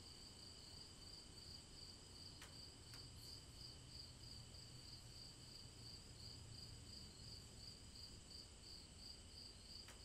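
Near silence: faint hiss with a thin, steady high-pitched whine that pulses about twice a second.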